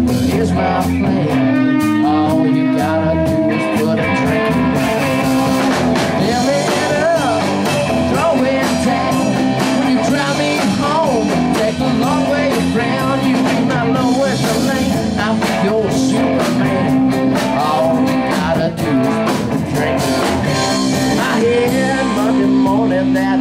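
Live band playing a blues-rock song, with guitar and a singer.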